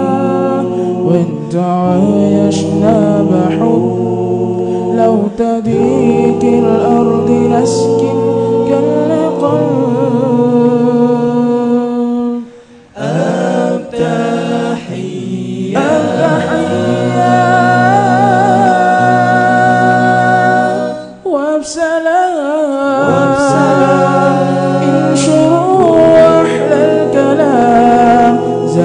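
A group of young male voices singing an Islamic nasheed a cappella through microphones, in layered harmony over a low sustained bass part. The singing drops out briefly about 13 seconds in and dips again near 21 seconds.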